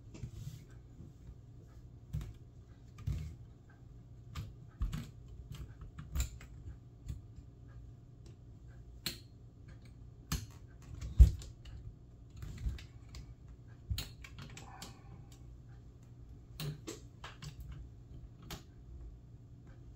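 Toshiba e-Studio copier fuser unit being handled during reassembly: scattered clicks and knocks of its metal frame and plastic parts, irregular and unhurried, with one sharper knock about halfway through.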